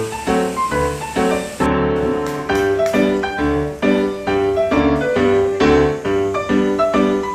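Background piano music: a steady stream of struck chords with a low bass line.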